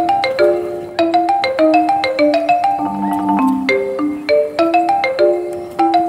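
Background music: a bright, quick melody of struck notes on a mallet instrument, each note ringing briefly and dying away.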